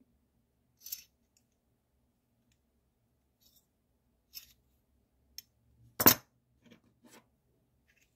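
Solid metal Sabacc credit plates clinking as they are handled: a few light clicks, one much louder sharp metallic clink about six seconds in, then two small taps.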